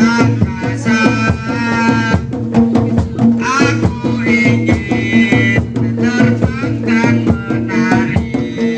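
Traditional Javanese percussion music of the kind played for bantengan: rapid drum and percussion strokes over a held low tone, with a high wavering melody line above.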